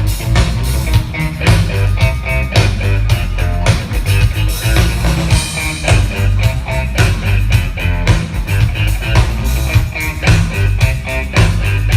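Live band playing an instrumental passage with electric guitar, bass and a steady drum beat, without singing.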